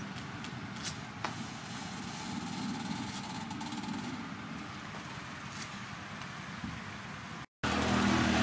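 Steady low rumble of vehicle and traffic noise, with a few sharp clicks about a second in and fainter ticks later as a knife blade cuts into a plastic bottle clamped in a vise. After a brief break near the end, the traffic noise comes back louder.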